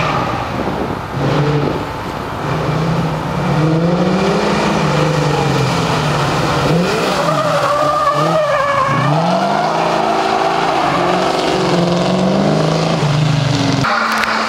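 First-generation Ford Mustang fastback drifting past under hard throttle, its engine note rising and falling with the revs, with tyres squealing about eight seconds in as it slides by. Shortly before the end the sound cuts to the steadier engine note of a BMW E30.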